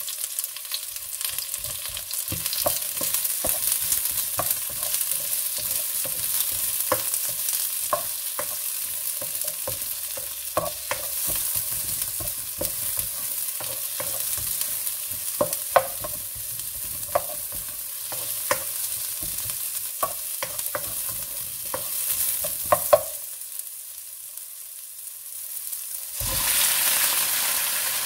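Onion and ginger sizzling in hot oil in a wok while a spatula stirs them, with frequent sharp clicks and scrapes of the spatula on the pan. The sizzle drops for a few seconds, then comes back louder near the end as chicken pieces go into the wok.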